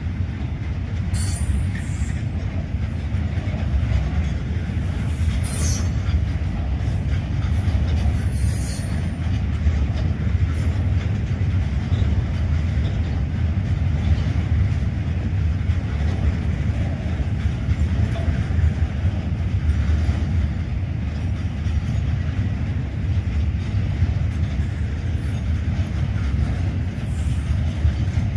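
Train wheels running over rail track: a steady, loud low rumble without a break, with brief high-pitched wheel squeals about one, five and eight seconds in.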